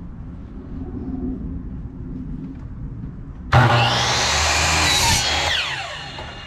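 Electric power saw switched on a little past halfway, cutting through a piece of wood for about a second and a half. The trigger is then released and the blade winds down with a falling whine. A low rumble runs before the saw starts.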